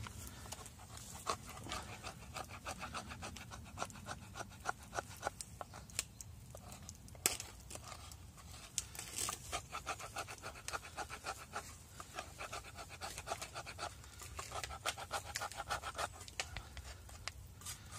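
A knife blade scraping a stick of resinous fatwood, shaving off fine tinder in quick runs of short strokes with brief pauses between them, and a couple of sharper clicks about six and seven seconds in.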